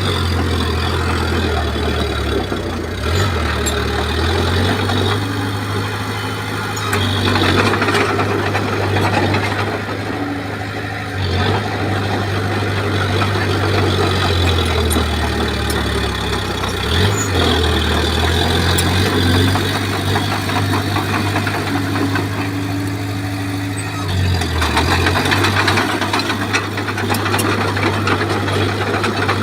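Heavy diesel engine of earthmoving machinery running continuously, its pitch and loudness shifting as it works under changing load.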